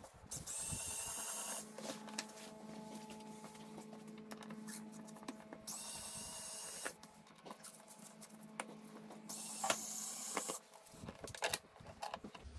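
Cordless electric screwdriver running in three short runs of about a second each, backing out the screws of a plastic motorcycle air cleaner box lid, with small clicks and handling noises in between.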